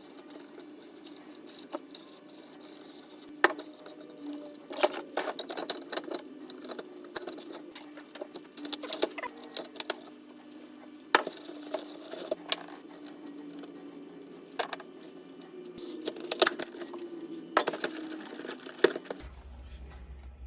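Irregular sharp clicks and taps of small parts and tools being handled on a workbench, over a steady hum that stops shortly before the end.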